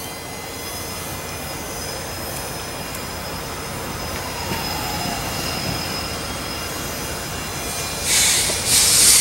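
Slow-moving freight train approaching through a rail yard: a steady rumble and hiss with faint high-pitched wheel squeal. Near the end come two loud hissing bursts.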